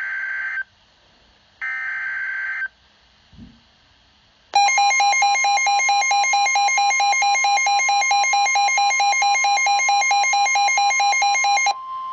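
Emergency Alert System SAME header: two of the roughly one-second digital data bursts, about a second apart, which announce an alert. Then, about four and a half seconds in, a loud pulsing two-tone attention signal sounds for about seven seconds. A steady single tone carries on after it stops, near the end.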